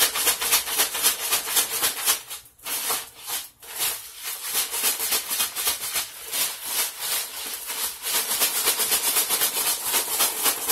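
Crushed ice rattling and crunching inside a plastic bag shaken hard and fast, about five shakes a second, with a couple of brief breaks a few seconds in. The bag is being shaken to freeze ice cream mix.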